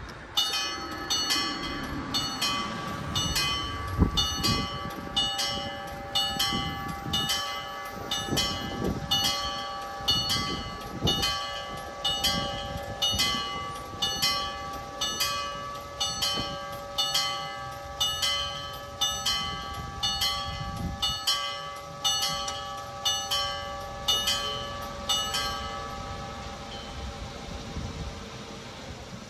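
Level-crossing warning bells ringing in a steady rhythm of metallic strikes, a bit more than one a second, then stopping near the end. A low thump about four seconds in.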